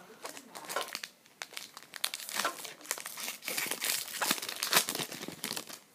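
Foil wrapper of a Pokémon trading card booster pack being torn open and crinkled by hand: irregular crackling and rustling, busiest in the second half.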